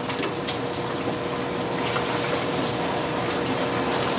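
Steady rush of circulating aquarium water with a constant pump hum.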